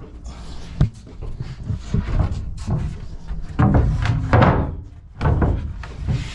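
Hollow thunks and knocks, with some scraping in between, from fiberglass boat hatch doors being handled and set into their lips. There is a sharp knock about a second in and a cluster of louder knocks and scrapes in the middle.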